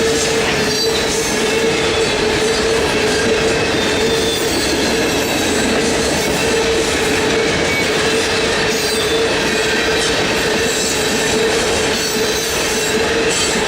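Loaded coal train cars rolling past steadily, with wheel and rail noise and a constant squealing tone from the wheels.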